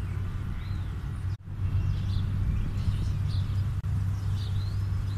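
A steady low outdoor rumble with small birds chirping briefly now and then; the sound cuts out for an instant twice.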